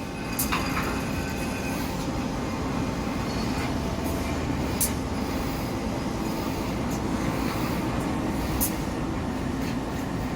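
BEKAMAK BMDO 80CS fully automatic HSS circular saw machine running, a steady mechanical hum with three sharp clicks about four seconds apart.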